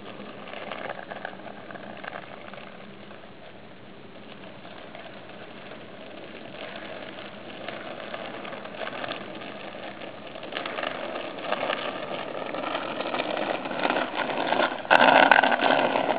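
A child's bicycle with training wheels rolling and rattling on asphalt, growing louder as it comes closer and loudest as it passes near the end, with a sharp click about fifteen seconds in.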